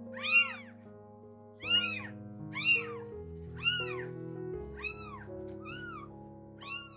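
A very young kitten mewing repeatedly: seven short, high calls, each rising and then falling in pitch, about one a second. Soft background music with held notes plays underneath.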